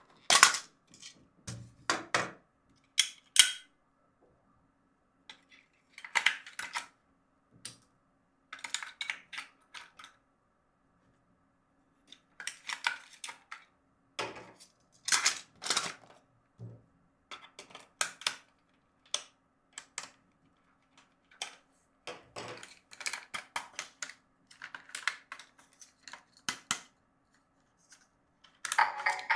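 Plastic toy parts and packaging being handled: irregular clicks, snaps and short rustles in bursts with pauses, over a faint steady hum.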